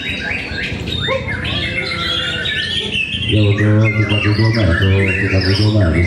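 Many caged white-rumped shamas singing and calling over each other, a dense mix of quick varied chirps, whistles and squawks. From about three seconds in, a loud low drone with several steady pitches joins underneath and becomes the loudest sound.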